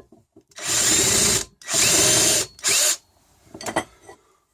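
Handheld power drill run in three short bursts, the first two about a second each and the last shorter, with a steady high motor whine.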